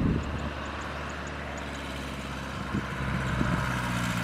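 Engine of a homemade farm truck running as it drives across a harvested rice paddy: a steady low drone that grows a little louder near the end, with a few faint knocks.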